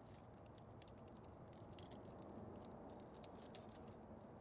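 Steel tire-chain links clinking and jingling softly as gloved hands thread a link through and hook it to tighten the chain on a truck tire, in light scattered clinks.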